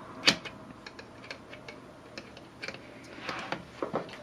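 Hard plastic clicks and knocks as a detachable plastic wrist rest is pushed against the underside of a Cyborg V5 gaming keyboard while its clips are being fitted in. One sharp click about a quarter second in is the loudest, followed by scattered light ticks and a brief scraping rustle a little after three seconds.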